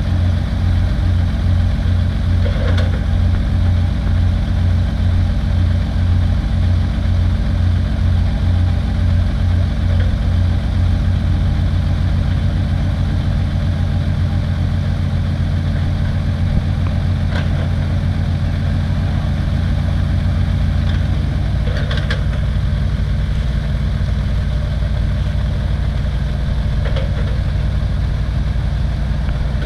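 Diesel engines of a Komatsu mini excavator and a six-wheel dump truck running steadily, the low drone pulsing at first, evening out about a third of the way in and dropping in pitch about two-thirds in. A few short knocks and clatters come from the excavator loading rocky soil into the dump truck's steel bed.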